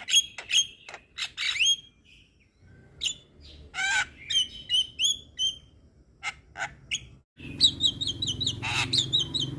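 Young Javan myna (jalak kebo) singing a rapid jumble of sharp clicks, squawks and short whistled notes. It pauses briefly about two seconds in. Near the end a steady low hum sits under the song.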